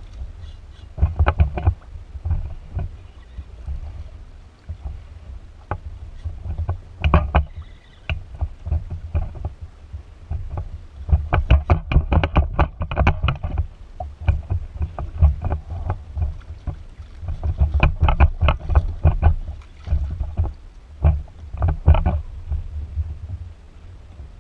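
Water sloshing and splashing against a plastic fishing kayak's hull during a fight with a hooked fish, over a steady low rumble of wind and water on the microphone. Repeated bursts of rapid clicking and knocking come and go every few seconds.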